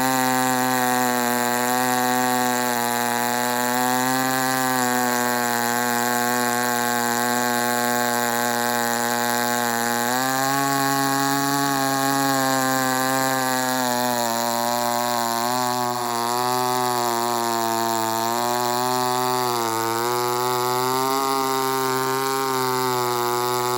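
Ported Poulan 245A two-stroke chainsaw running flat out through a long cut in big hardwood on a freshly sharpened chain. Its pitch holds steady, then dips and recovers a few times as it loads in the cut.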